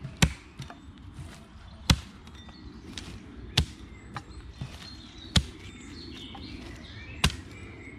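A light 2.5 lb Mueller axe chopping small branches into firewood lengths on a stump, swung one-handed: five sharp chops, one every second and a half to two seconds. Small birds chirp faintly between the strikes.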